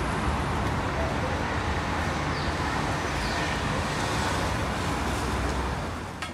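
Steady street noise of road traffic, fading out near the end.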